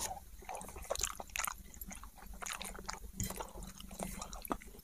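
Burger being chewed close to the microphone: soft, irregular wet clicks and crunches of mouthfuls being worked.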